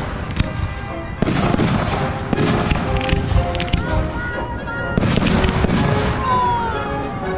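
Fireworks going off: two loud bursts, about a second in and about five seconds in, each followed by a spell of crackling, with music playing alongside.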